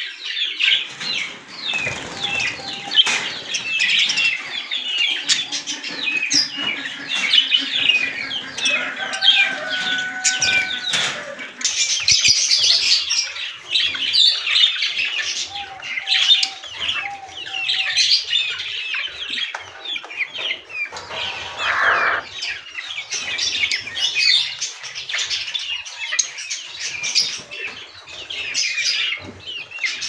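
Many small caged birds chirping continuously, their short high calls overlapping, with a longer steady call standing out twice.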